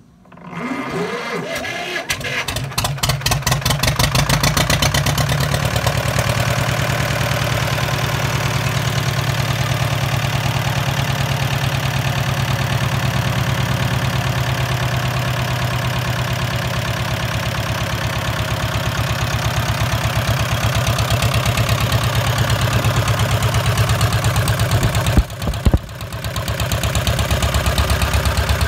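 Circa-1950 Buda Lanova 2BD77 77-cubic-inch two-cylinder diesel cranked on its starter, catching and picking up speed over the first few seconds, then running with a steady, even beat. This is one of its first runs after the engine was revived from years of sitting. About 25 seconds in, the sound briefly drops away with a couple of sharp knocks, then comes back up.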